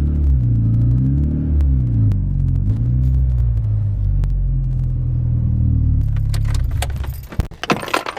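Mitsubishi Lancer Evolution X's turbocharged four-cylinder engine revving up and down repeatedly, its pitch rising and falling, until it drops away about six seconds in. A series of sharp clicks and rattles follows near the end.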